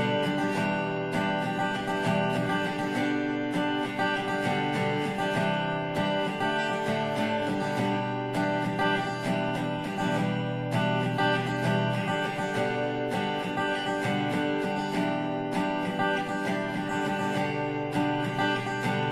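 Background music led by acoustic guitar, playing steadily with an even beat.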